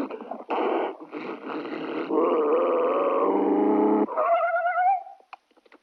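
A man doing vocal sound effects with his mouth: a run of growling, whining and warbling tones with a wavering glide about four seconds in, ending in a few short clicks near the end.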